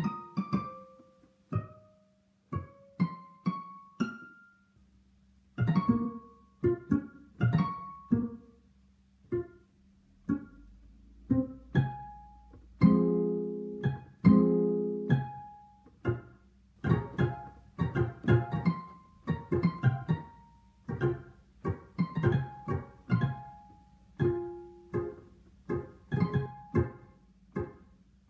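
Background music: a light tune of plucked string notes, with a held chord of bowed strings for a couple of seconds around the middle.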